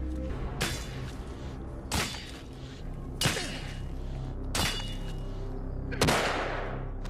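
Five revolver shots, evenly spaced about 1.3 seconds apart, each with a short echoing tail; the last shot is the loudest and rings out longest. A low, steady music score runs beneath.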